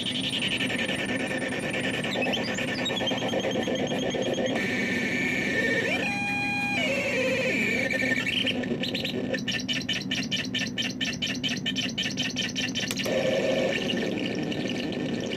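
Homemade noise synthesizer played by pressing its lit buttons: a constant hissing drone with squealing tones that glide and jump in pitch. A fast, even pulsing stutter comes in past the middle and stops a few seconds later.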